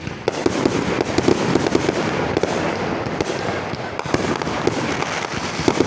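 Many fireworks going off at once: a dense, unbroken barrage of pops, bangs and crackling, with sharper louder reports scattered through it.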